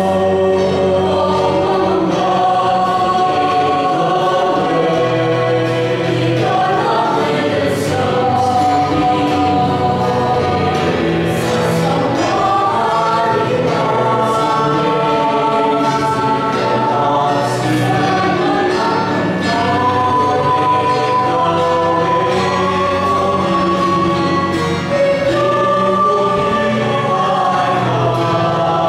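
Mixed choir of men and women singing a hymn in parts, several voice lines moving together over sustained low notes.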